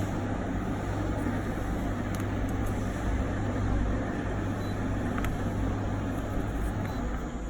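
Commercial tumble dryer running: a steady mechanical rumble over a constant low hum, with a few faint clicks.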